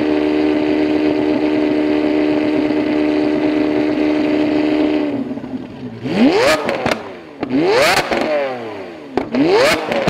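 Lamborghini Aventador LP700-4's V12 through a valved Fi Exhaust system, held at a steady high rev for about five seconds and then dropping off. It is then blipped three times in quick rising revs, with crackles and pops on the overrun between blips. The car is very loud.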